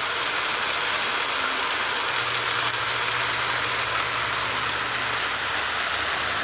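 Sweet potato leaves frying in hot oil in a wok, a steady sizzle, with a low hum underneath that drops out briefly and comes back.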